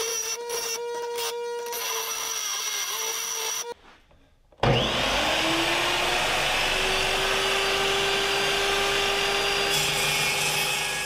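A bench grinder wheel grinding a steel bar for the first few seconds. After a short break, a chop saw starts suddenly and cuts through the steel bar. Its steady motor tone sits under the dense, even cutting noise until near the end.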